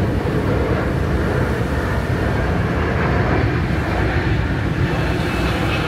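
Jet airliner passing overhead: loud, steady jet engine noise, heaviest in the low rumble, called a terrible noise at night.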